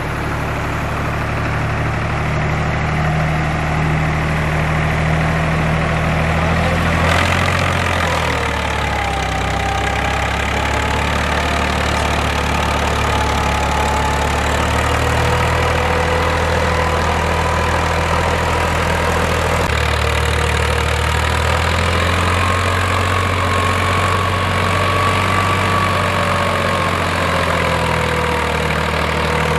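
Agri King 20-55 4x4 tractor's diesel engine running steadily under load while dragging a land leveller through sand, with a wavering whine over the engine note. The sound changes abruptly twice, about a quarter and two-thirds of the way in.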